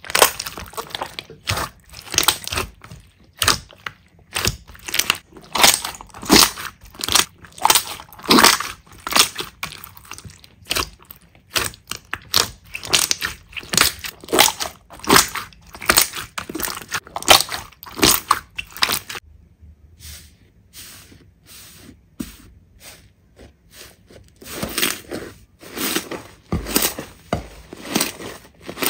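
Slime being squeezed and pressed by hand in repeated short squishes, about two a second, with a quieter stretch a little past halfway.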